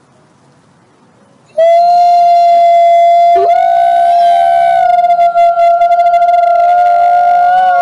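Wolves howling: one long, steady howl begins suddenly about a second and a half in, and a second howl joins about two seconds later, rising in pitch before settling, the two voices holding together.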